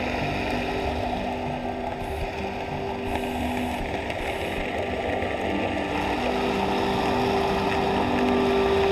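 Steady underwater noise picked up by a dive camera: a low rumble and hiss in open water, with a few faint held tones running underneath.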